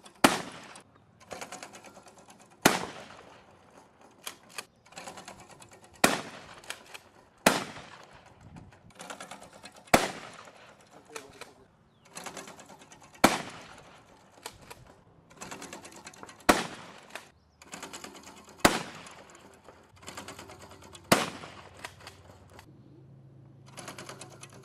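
Gunshots at a shooting range: about nine loud single shots, one every two to three seconds, with fainter shots and crackling in between.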